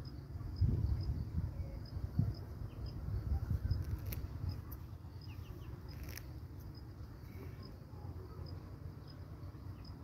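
An insect chirping steadily: a long run of short, evenly spaced high pips. A low rumble sits under it, heaviest in the first few seconds, and there are two sharp clicks about four and six seconds in.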